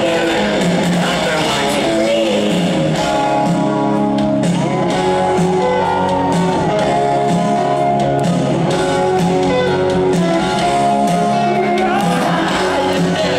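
Hard rock band playing live, with distorted electric guitars, bass and drums under a shouted lead vocal. It is a loud stadium concert heard from the crowd.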